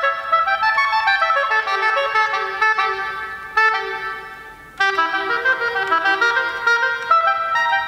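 Solo oboe playing a melody. About halfway through, a held note fades away before the melody starts again.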